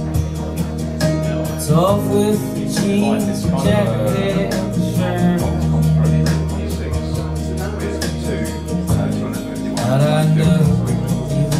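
A song with singing, guitar and a steady beat, played over Dali Callisto wireless active hi-fi speakers.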